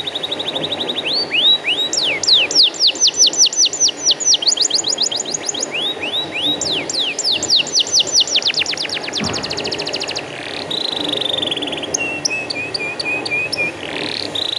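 Domestic canary singing a string of rapid tours: fast repeated downward-sweeping whistled notes, then a steady rolling trill about two-thirds through, and a lower, quicker chatter near the end.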